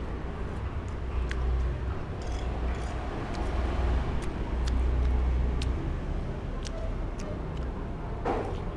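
Steady low rumble of road traffic that swells in the middle, with a few light clicks over it.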